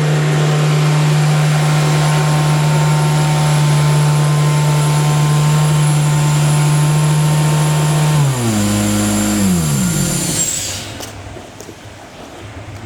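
Truck-mounted water extraction unit, a Cummins diesel driving a large vacuum blower, running steadily with a low hum and a high whine. About eight seconds in it winds down, its pitch falling in steps, and within a couple of seconds it is much quieter.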